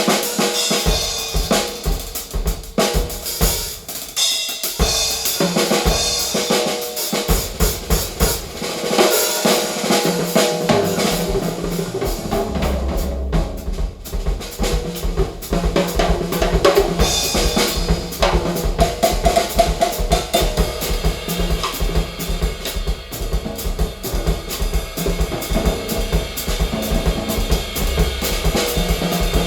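A drum-kit percussion track played back through a home hi-fi system of eighteen midwoofers, Heil ESS AMT-1 air-motion tweeters and two REL S/812 subwoofers. Steady driving drum hits, with a sustained deep bass coming in about a third of the way through.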